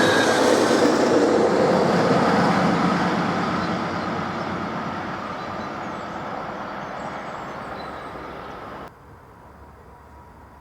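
Electric S-Bahn train running past, then fading as it moves away, with a faint whine in its running sound early on; the sound drops off sharply about nine seconds in.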